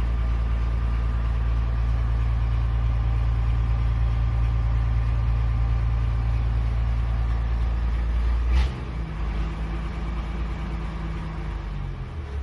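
Old Ashok Leyland bus's diesel engine running steadily, heard loud from inside the driver's cab. About two-thirds of the way in there is a short sharp noise, after which the engine note shifts slightly higher and a little quieter.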